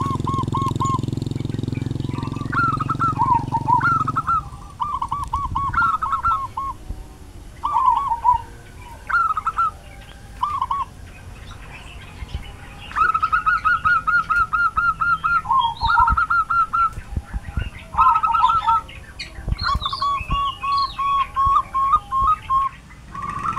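Zebra doves (perkutut) cooing: series of short repeated notes and quick rolling runs, several birds overlapping. A motorbike engine runs under them for the first four seconds and then stops.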